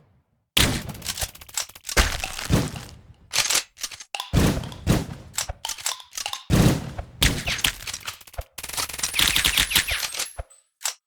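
A run of sharp cracks, thuds and breaking noises, one hard hit after another with brief pauses, turning into a denser crackle near the end.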